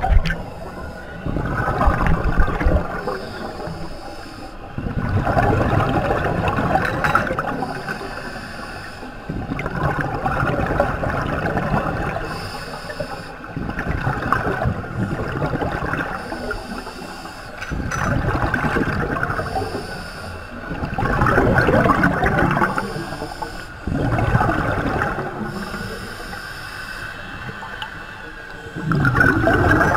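Scuba regulator breathing heard underwater: a gurgling rush of exhaled bubbles every three to four seconds, with a short hiss of the regulator on each inhale in between.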